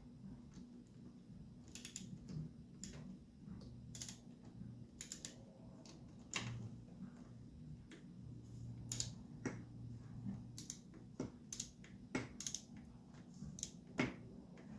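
Sharp metallic clicks of hand tools and parts being handled, at irregular intervals of about one or two a second, over a low steady hum.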